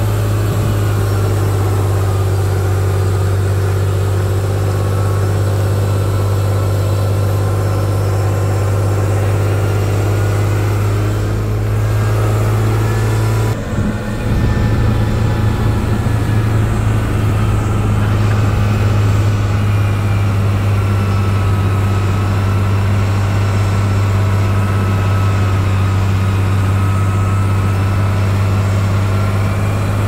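Heavy earthmoving machine's diesel engine running steadily under a constant low hum, with a brief dip near the middle.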